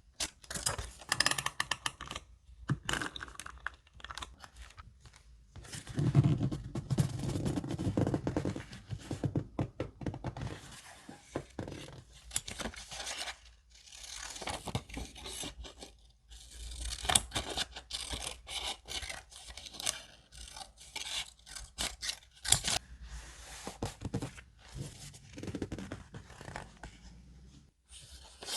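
Close-up paper-crafting sounds for a handmade junk journal: sheets of paper rustling, scraping and tearing, with light taps and thunks as pieces are handled and pressed down, in uneven bursts.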